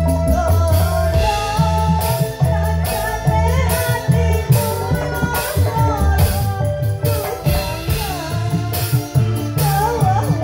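Live band music played loud through PA loudspeakers: a woman singing into a microphone over keyboard, a steady drum beat and bass, a Javanese song for joget dancing.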